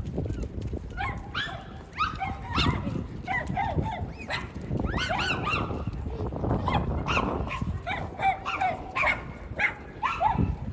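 Many short, high, arching animal cries, overlapping and repeating, over a steady low rumble of wind and water.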